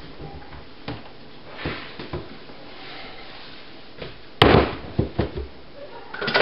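Kitchen handling noises: a few light knocks and clicks, then one loud knock about four and a half seconds in, followed by several lighter knocks as containers are picked up and set down on the counter.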